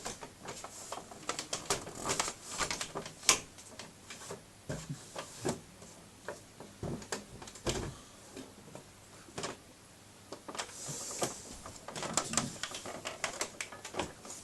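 Handling noise: irregular clicks, knocks and rattles as a computer case and the camera are moved about, with a sharper knock about three seconds in and a dull thud near eight seconds.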